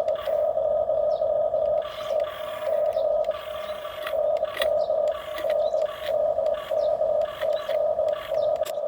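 Small electric gear motors of radio-controlled toy construction machines whining in short on-off spurts as the controls are worked, with scattered clicks and scrapes.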